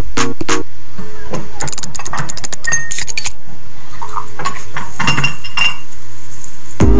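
Electronic background music playing from the sketch and switching tracks. A beat-driven track stops about half a second in, then a different track comes in with chiming, bell-like notes and slower pitched tones. A loud new burst of sound starts right at the end.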